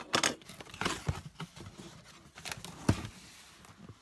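Cardboard shipping box being opened by hand: the flaps scrape and crinkle as they are pulled apart, with a sharp thump just before three seconds in.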